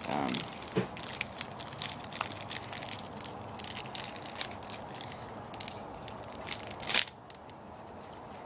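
A crinkly clear plastic bait package being opened and handled by hand, crackling and crinkling irregularly, with a louder crackle about seven seconds in.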